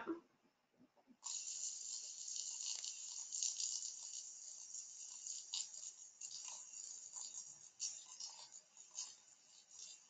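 Hydrophone recording of bigclaw snapping shrimp (Alpheus heterochaelis): a dense, continuous crackle of countless small snaps that starts about a second in.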